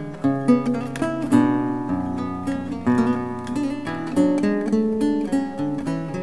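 Instrumental background music: quick runs of notes, each starting sharply and fading away.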